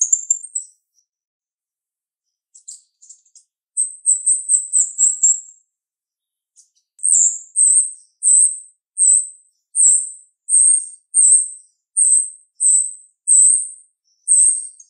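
Female jalak rio-rio calling in high, sharp notes: a quick run of short notes about four seconds in, then from about seven seconds a steady series of single notes, roughly three every two seconds.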